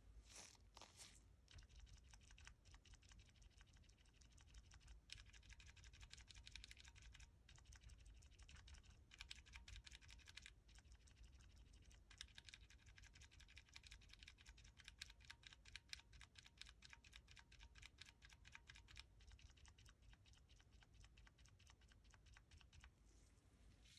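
Typing on a Keychron Q1 mechanical keyboard with lubed Cherry MX Silent Black linear switches, PE foam and PBT keycaps: a quiet, continuous run of damped keystrokes, broken by a few short pauses.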